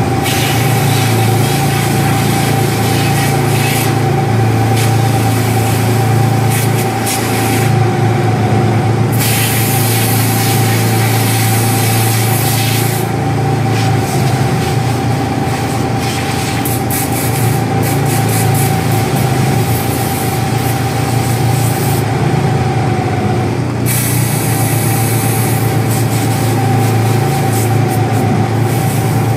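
Barracuda MFU 40-50 mobile foam unit's pump running steadily with a low hum and a steady whine, while the foam nozzle's hiss comes and goes several times as it is opened and closed on the car fire.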